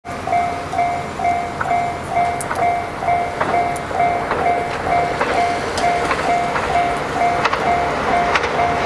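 Railway level crossing warning bell ringing, an even two-pitch 'kan-kan' about twice a second, with sharp clicks now and then.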